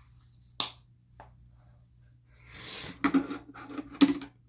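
Small plastic fidget toys and packaging being handled: a sharp click, a brief rustle, then a quick run of clicks and knocks near the end.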